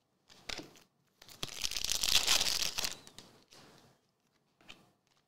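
Glossy chrome trading cards sliding against one another as a stack is flipped through by hand. One long rustling swipe runs for about a second and a half in the middle, with a few light clicks of card edges before and after.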